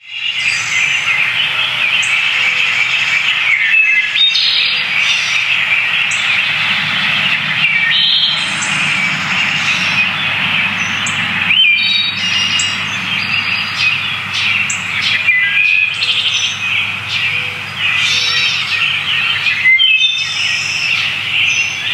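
A chorus of birds chirping and singing, a dense steady twittering with clearer individual calls, some sweeping up or down in pitch, standing out every few seconds.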